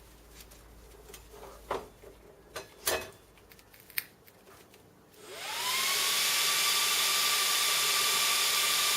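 A few clicks and knocks, then about five seconds in the cooling fans of a 1U rackmount server spin up. A rising whine settles into a loud, steady rush of air. This is the fans running at full speed at power-on, before the BIOS's temperature control slows them down.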